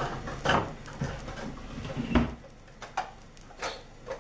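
Bowls knocking and clinking as they are taken out of a kitchen cabinet: several separate short knocks, the loudest about two seconds in.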